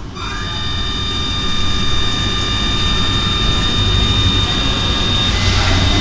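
RER commuter train approaching through an underground station tunnel: a low rumble growing steadily louder, under a steady electric whine of several high tones.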